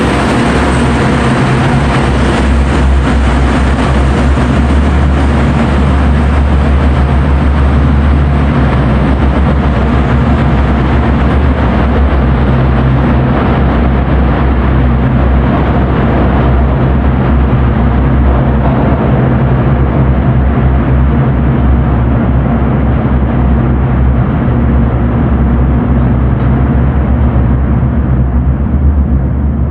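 R156 diesel work locomotives running under load, a loud, steady low engine drone echoing through the subway station and tunnel. The higher sounds fade as the train moves off down the tunnel, while the low drone holds.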